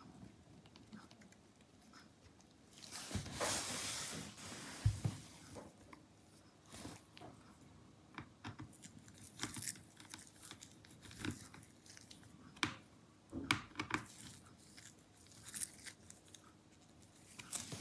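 Gloved hands fitting a laptop SSD's metal shield back over the drive: a rustling scrape a few seconds in, one sharp click, then scattered small clicks and ticks as a small screwdriver drives in the shield's screw.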